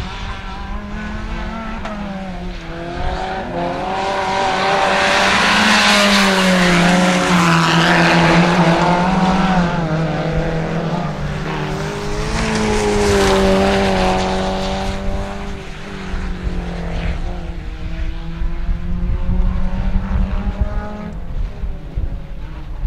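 A pack of 1400cc-class rallycross cars racing, several small engines revving hard together with their pitch rising and falling through the gears. The sound swells as the cars pass close, about five to nine seconds in and again around thirteen seconds.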